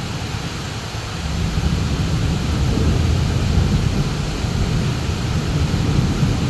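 Heavy rain pouring steadily, under a low rolling rumble of thunder that builds about a second and a half in and eases slightly near the end.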